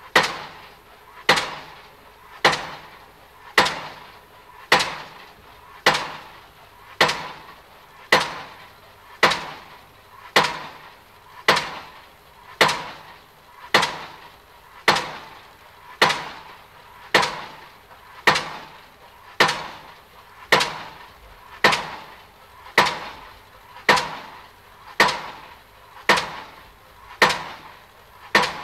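A sharp knock repeating at a steady beat, a little under once a second, each blow dying away with a short ring.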